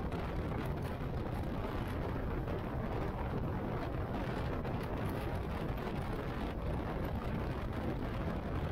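A motorcycle riding at a steady speed: constant wind rush and road noise with the engine running underneath. No changes in speed or pitch.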